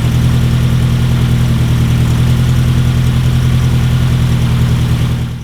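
Mazdaspeed 3's rebuilt 2.3-litre turbocharged four-cylinder engine idling steadily on its first run after the rebuild. The level drops slightly right at the end.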